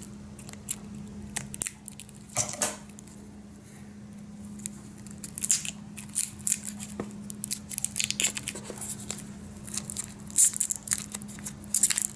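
Thin clear plastic wrapper being picked and peeled by hand off a webcam's folding mount: irregular small crackles and clicks, sparse at first and busier in the second half, over a faint steady low hum.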